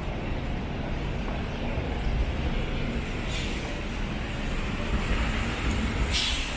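Steady road traffic running past, with two short hisses about three and six seconds in.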